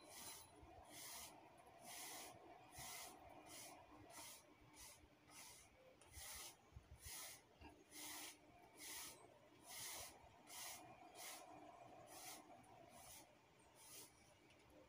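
Faint, regular scraping strokes of a broom pushed across a hard floor, about two strokes a second.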